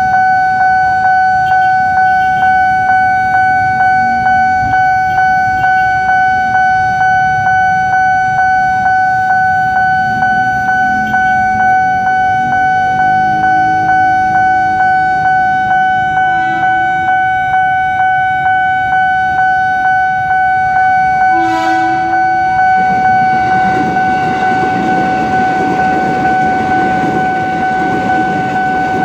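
Railway level-crossing warning bell ringing with a steady, evenly repeating ding. About twenty-one seconds in, a short train horn blast sounds. The rumble and wheel noise of a KRL commuter electric train then build as it rolls over the crossing.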